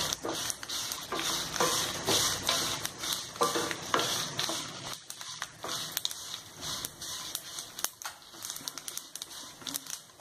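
Wooden spatula stirring dried red chillies and whole spices (sesame, cumin, coriander, fenugreek) frying in a little oil in a nonstick kadai: irregular scraping strokes over a light sizzle and crackle as the spices roast toward golden. The strokes are stronger in the first half and fainter after about five seconds.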